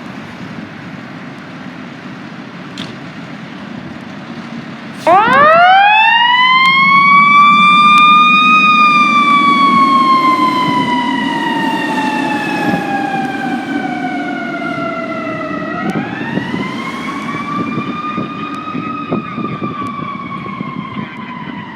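Fire truck siren starting about five seconds in, climbing quickly to a loud high wail, then sliding slowly down in pitch. About ten seconds later it climbs again and falls slowly once more, over a steady low engine rumble.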